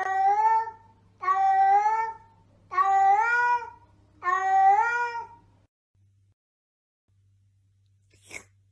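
A cat meowing four times: long, alike meows of about a second each, evenly spaced about a second and a half apart, each rising a little in pitch and then falling.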